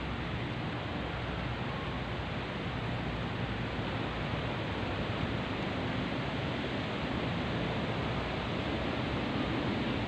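Steady rush of wind through trees and banana plants, growing slightly stronger toward the end.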